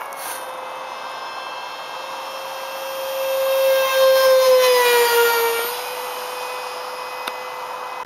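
The 64 mm electric ducted fan of a StarMax AMX V2 RC jet whining as the jet flies past overhead. It grows louder to a peak about four to five seconds in, then its pitch drops as it passes and the whine settles quieter.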